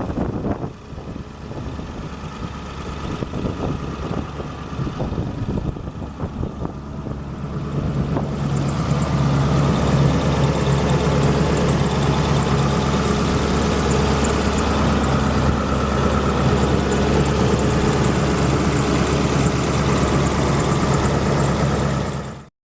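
Ford F-250 Super Duty pickup truck engine running. About eight seconds in it becomes louder and settles into a steady idle, which cuts off abruptly near the end.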